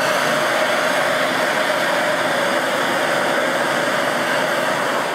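Hand-held propane torch burning with a steady hiss as its flame plays on a thin heat-resistant sheet.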